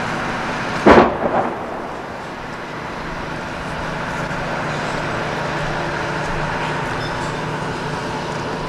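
A detonation: a sudden loud bang about a second in, dying away over about half a second, followed by a steady rumbling background.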